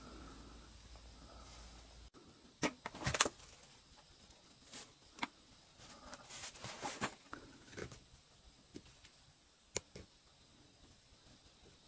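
Irregular footsteps with scuffs, knocks and crunches of debris as someone walks through a cluttered room, louder in two short clusters.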